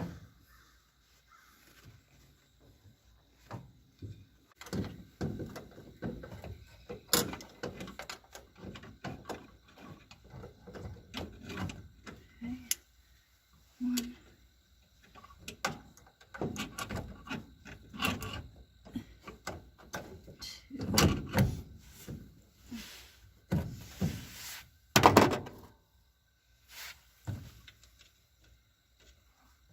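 Hand work on small metal parts: scattered, irregular clicks and knocks with short bursts of scraping, as rusty master cylinder push rods are cleaned up. The loudest scrape comes near the end.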